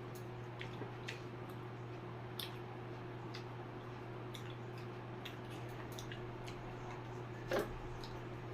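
Eating sounds: scattered soft clicks and smacks of chewing and of fingers working food on a plate, with one louder click about seven and a half seconds in, over a steady low hum that fits a running electric fan.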